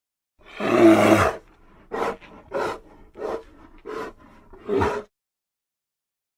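Bear creature's film sound effect: one long loud roar, then five short calls in quick succession, the last a little louder than the others.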